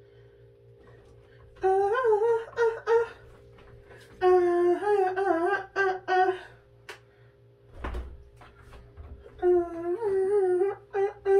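A woman humming a tune without words in three phrases, with a dull thump between the second and third, over a steady low hum.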